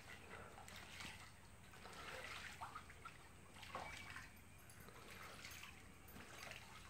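Faint trickling and lapping of swimming-pool water as ducks paddle through it, with a few short, soft sounds scattered through.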